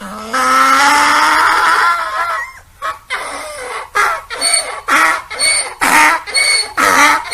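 Donkey braying. It opens with one long drawn-out call rising in pitch, then, after a brief pause, settles into a steady hee-haw rhythm of alternating raspy and pitched notes, about one hee-haw a second.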